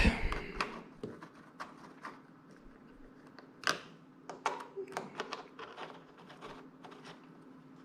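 Scattered light metallic clicks and taps of hand tools on bolts as motorcycle bolts are fitted and snugged down until they just meet resistance. The sharpest click comes about three and a half seconds in, followed by a quick run of smaller clicks, over a faint steady hum.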